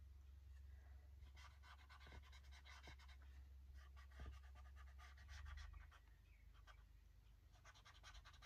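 Faint scratchy strokes of colouring on paper, coming in short runs, over a low steady hum.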